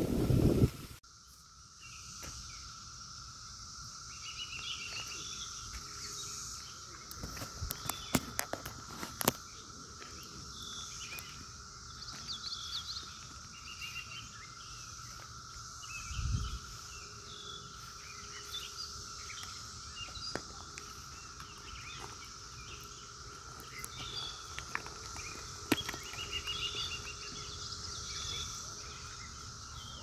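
Steady, even drone of a distant periodical cicada chorus, with a higher insect hiss above it and scattered bird chirps. Wind buffets the microphone in the first second, and a few sharp clicks come about eight to nine seconds in.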